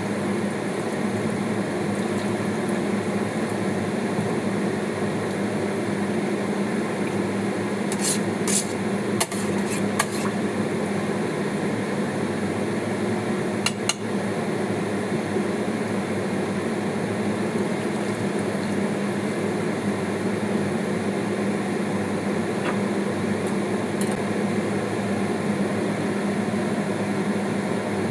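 Steady kitchen hum, with a few sharp clinks of dishes and cutlery about eight to ten seconds in and again around fourteen seconds.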